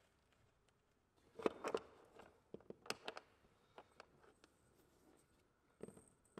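Quiet handling sounds of kayak rudder steering lines and their plastic clamps being pulled and adjusted: bunches of small clicks and rustles about a second and a half and three seconds in, a few lighter ticks, then a dull thump near the end.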